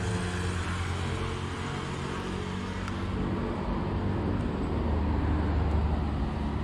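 Street traffic: car engines and tyres going by, swelling as a car passes close about five to six seconds in.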